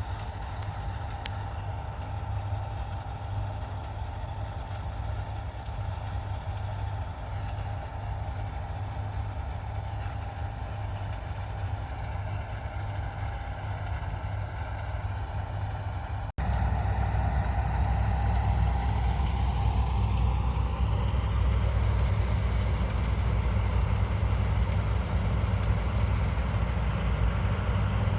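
Heavy farm diesel machinery running steadily. About 16 seconds in the sound cuts to a louder, deeper engine run with a whine that falls in pitch.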